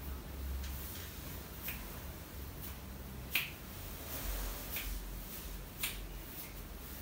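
Fingers snapping around the head during a hands-on head massage: several sharp snaps about a second apart, the loudest about halfway through.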